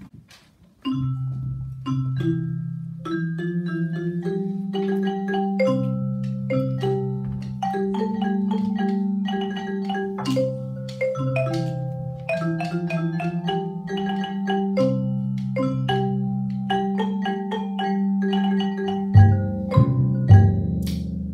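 Live mallet-percussion ensemble: xylophones or marimbas play a repeating melody of struck notes over low sustained bass notes, starting after a brief pause about a second in. Heavier low drum strikes join near the end.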